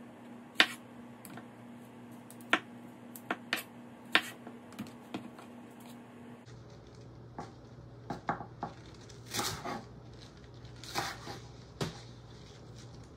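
Chef's knife cutting on a wooden cutting board: first a few sharp, widely spaced knocks of the blade through tomatoes, then, after a cut, a denser run of chops through bok choy stalks and leaves.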